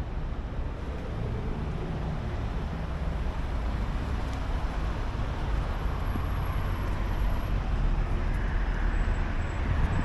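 Steady city road traffic noise, a continuous low rumble of passing vehicles with no single event standing out, growing slightly louder in the second half.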